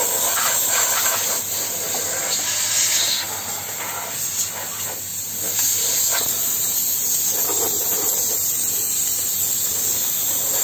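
Hot steam jetting from a handheld steam lance into an opened espresso machine's housing: a steady loud hiss that eases slightly about four seconds in, then comes back up.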